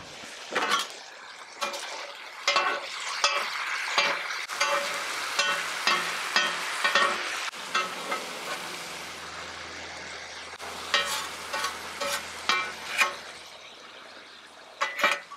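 Thin-sliced ribeye sizzling on a charcoal-heated steel griddle while two metal spatulas chop, scrape and turn it, with frequent sharp clanks of steel on the griddle top. The sizzle eases in the second half.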